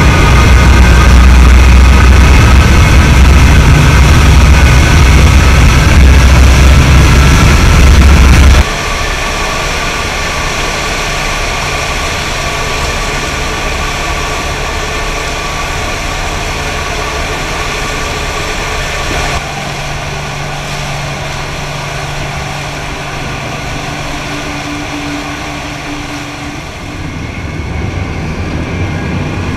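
A fast boat's engines running hard under way, a deep rumble with a steady whine over it, mixed with the rush of churning wake water. The sound cuts abruptly about 9 seconds in and again about 19 seconds in, and is quieter after the first cut.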